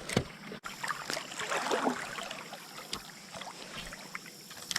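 Creek water running steadily, with a few scattered light clicks.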